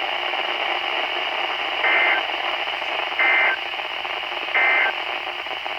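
Weather radio broadcast with a steady static hiss, then three short bursts of shrill digital data tones about a second and a half apart: the EAS end-of-message (EOM) code that closes the alert.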